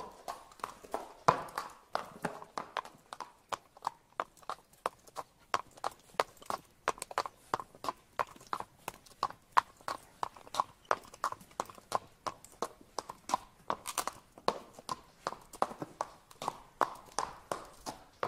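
Shod horses' hooves clip-clopping on a paved street at a walk, a steady run of sharp clops about three a second.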